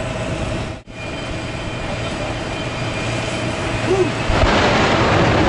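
Jet-powered semi truck's jet engines running with afterburner flames, a steady rush with a high whine on top. The sound cuts out briefly just under a second in, then grows louder from about four seconds in.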